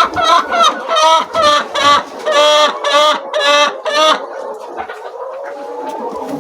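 A laying hen calling loudly in a quick run of repeated clucks, about three to four a second, the later calls longer and drawn out, stopping about four seconds in. After that the quieter clucking of the rest of the flock carries on.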